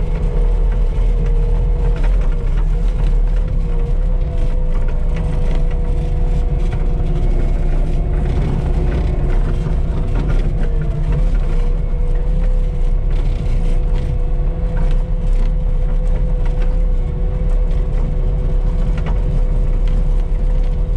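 Cat 259D compact track loader travelling, its diesel engine running steadily under a constant whine, with its tracks rattling over gravel.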